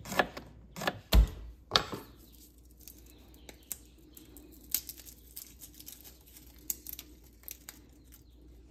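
Kitchen knife slicing through jalapeño peppers onto a plastic cutting board: about four sharp chops, roughly one every half second, in the first two seconds. After that, faint crinkling and small clicks of papery skin being peeled off garlic cloves by hand.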